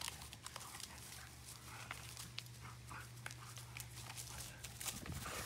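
Two yellow Labradors playing tug of war with a stick: faint dog noises with scattered small clicks and scuffs from the tussle, over a steady low hum.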